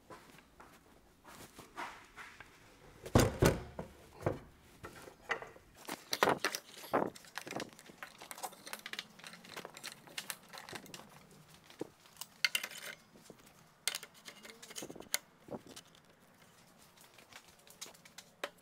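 Irregular clunks, knocks and scraping of the heavy steel parts of a home-built 2x72 belt grinder being handled and fitted back together on a wooden workbench. The heaviest thud comes about three seconds in. The grinder's motor is not running.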